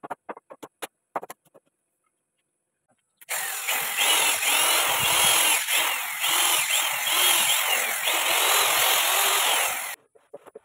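A few light knocks, then a power tool running under load, cutting or grinding, for about seven seconds; it starts and stops abruptly.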